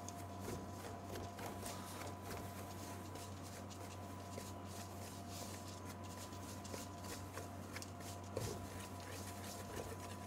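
A wooden spoon stirring and pressing a stiff, crumbly paste of ground almond, icing sugar and egg white in a stainless steel bowl, making faint, irregular scrapes and scuffs. A steady electrical hum runs underneath.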